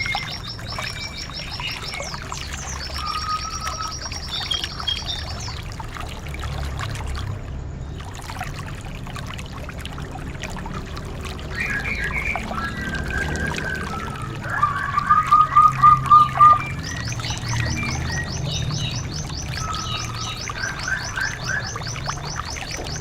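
Small songbirds singing: rapid high trills, short whistled phrases and chirps overlapping one another. A loud rapid trill about two-thirds of the way through is the loudest part, all over a low steady rumble.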